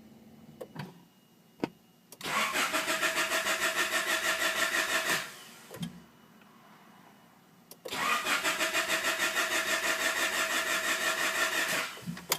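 Starter cranking a Honda H22A 2.2-litre four-cylinder engine in two tries of about three and four seconds, with an even rhythmic chug that never picks up speed. The engine does not catch: a no-start.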